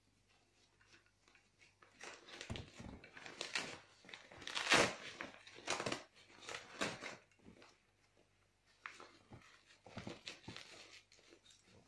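Handling noise from assembling a baby stroller's frame: irregular clicks, knocks and rustles as parts are fitted at the rear wheels, with the loudest burst about halfway through.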